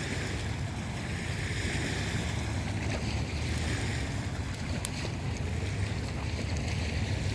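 Steady rushing noise of an open fire burning, with wind on the microphone and a single faint snap about five seconds in.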